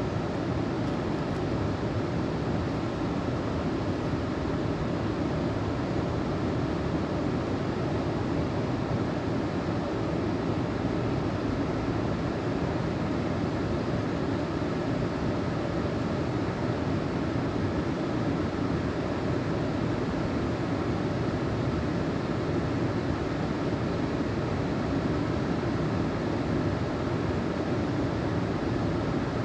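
Steady rushing of fast-flowing creek water, an even noise with no breaks or changes.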